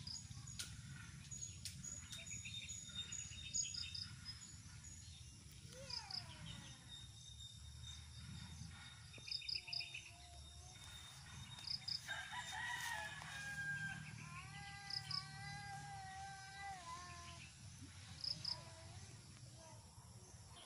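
A rooster crows in a long, wavering call from about twelve seconds in. A small bird gives short high chirps in twos and threes every few seconds over a low steady rumble.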